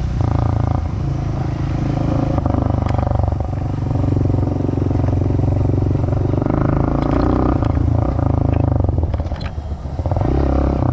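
Honda dirt bike's engine running under throttle while being ridden, with a brief let-off of the throttle a little before the end before it pulls again.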